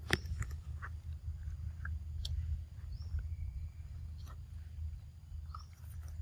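Young macaques chewing and biting into a ripe mango, with scattered small clicks of eating. A few brief high chirps sit over a low steady rumble.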